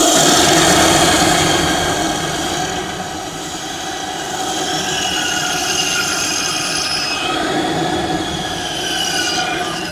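Continuous high-pitched squealing made of several tones at once, which drift slowly up and down in pitch, over a rough, noisy rumble.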